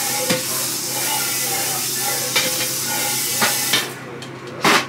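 Food sizzling in hot oil in a pan, with a few light clicks of a utensil against the pan; the sizzling dies down near the end, followed by a sharp clank.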